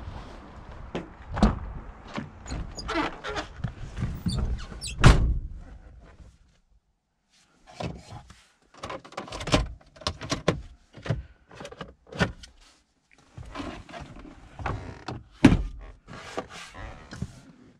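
Getting into a 2001 Citroën Berlingo: scuffs and knocks, then the car door shutting with a heavy thunk about five seconds in. After a short silence comes a string of short clicks and knocks of the hard plastic dashboard trim and compartment lids being opened, tapped and closed.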